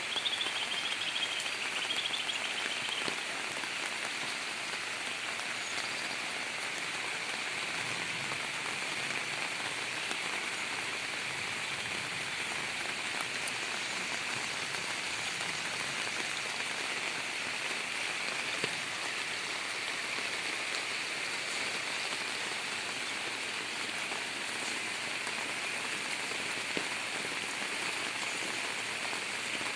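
Steady heavy rain, an even hiss with scattered drips. A bird sings over it at the start and stops about three seconds in.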